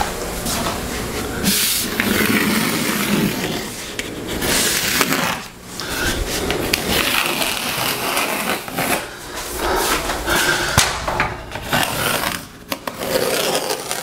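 Scraping and rubbing of a large half-inch MDF sheet as it is shifted and pressed into place against a textured wall, with occasional knocks.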